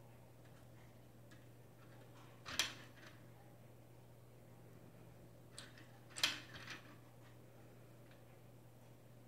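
Sharp plastic clacks from the hanging toys on a baby bouncer's toy bar being knocked by the baby's hands: one about two and a half seconds in, and a second about six seconds in with a couple of softer clicks around it. A faint steady low hum lies underneath.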